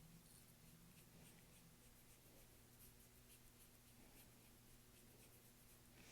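Faint scratchy strokes of a paintbrush on canvas, short and irregular, over a steady low hum.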